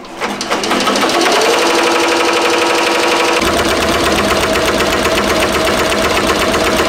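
Ricoma MT 1501 15-needle embroidery machine stitching a left-chest logo into a hooped sweatshirt. It comes in about half a second in with a rising whine as it gets up to speed, then runs at a steady, fast needle rhythm.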